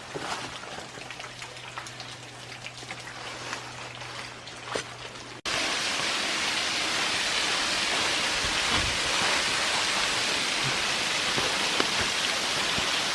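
Woodland waterfall: splashing and dripping water at first, then after an abrupt cut about five seconds in, a louder, steady rush of falling water.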